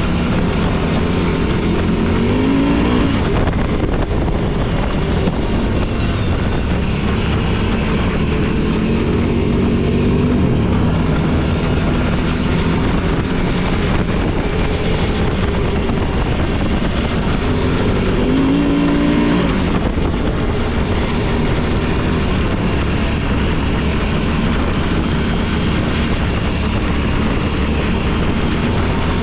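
Off-road vehicle engine running steadily under load, its pitch rising as it revs up a few times, over a constant ride rumble.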